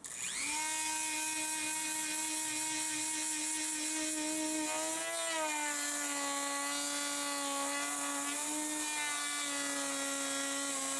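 Dremel rotary tool with a router-style cutter bit spinning up at the start, then running with a steady high whine. Its pitch dips slightly about halfway through and again near the end as the bit is loaded cutting the plastic console.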